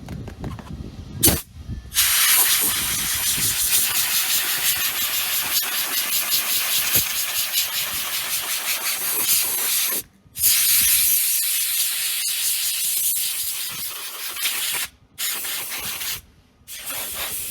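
Compressed-air blow gun blowing dust out of a car's cabin air filter: a loud steady hiss that starts about two seconds in and runs in long blasts, cut off briefly about ten seconds in and twice more near the end.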